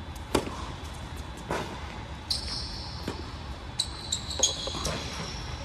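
Tennis rally: a ball struck by rackets with sharp hits about every second and a half, the first and loudest on the serve. From about halfway, high sneaker squeaks on the hard court join in. All of it echoes in a large indoor tennis hall.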